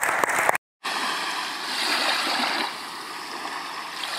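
Audience applause that cuts off abruptly about half a second in. After a brief silence, a steady rush of water follows.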